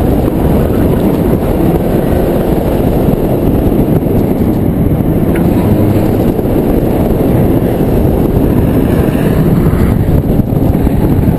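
Daihatsu Charade G102 being driven on a track: steady loud engine and road rumble, heavily mixed with wind buffeting on the outside-mounted camera's microphone.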